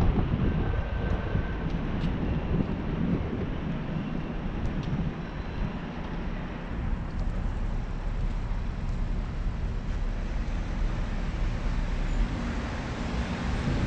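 Motorcycle engine running with wind rushing over the microphone as the bike rides down a street, easing off and a little quieter around the middle as it slows behind a car.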